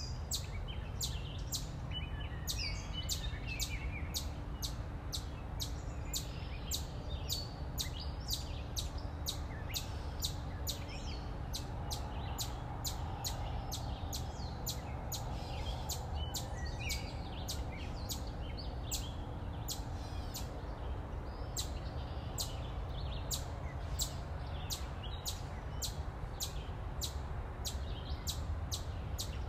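A short high chirp repeating evenly, about two to three times a second, over a steady low rumble.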